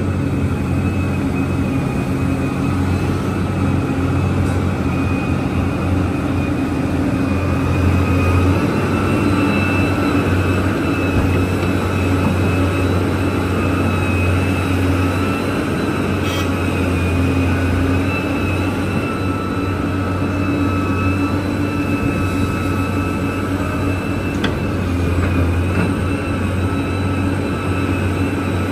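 Large Liebherr mining excavator's diesel engine running steadily under a deep hum, with a steady high-pitched whine above it.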